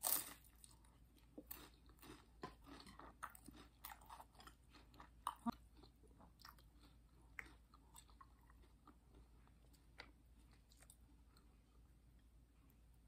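Close-miked bite into a crispy fried spring roll (lumpia), a loud crunch right at the start, followed by crunchy chewing with short crackles and mouth clicks that thin out over the second half.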